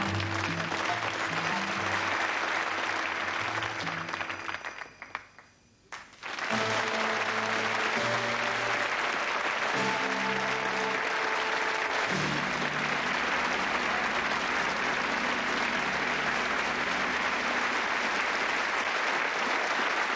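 Audience applauding over background music. Both drop away for about a second around five seconds in, then the applause and music come back and carry on steadily.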